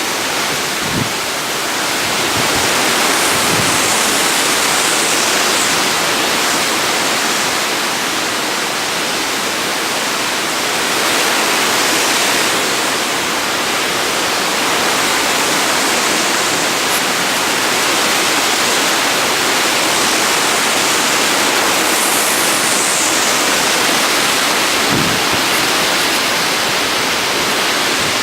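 Hurricane wind and rain: a loud, steady rush of noise that swells and eases a little in gusts.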